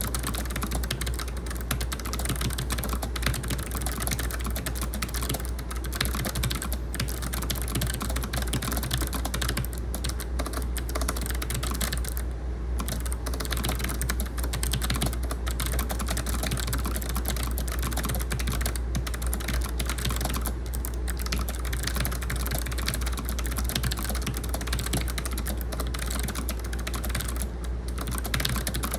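Fast continuous typing on a Logitech MX Mechanical keyboard with clicky low-profile switches: a dense run of sharp key clicks, with brief pauses about twelve seconds in and near the end. A steady low air-conditioner hum runs underneath.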